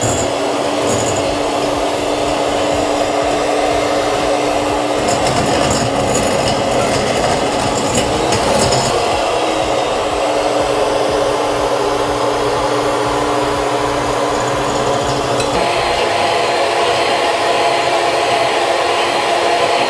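Handheld electric mixer running steadily at speed, its beaters whipping milk and gelatin in a glass bowl.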